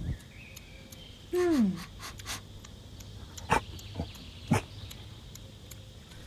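An animal's short falling whine, followed a couple of seconds later by three brief sharp sounds about half a second apart.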